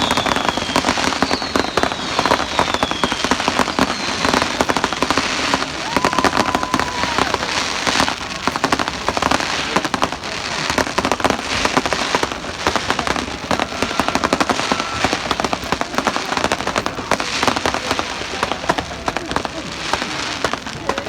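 Fireworks display: a dense, continuous barrage of bangs and crackling, with a few short whistles, the first ones falling in pitch.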